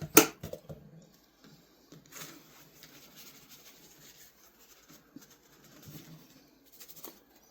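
A sharp knock just after the start, then faint scattered handling and rubbing noises from small objects being moved and worked by hand.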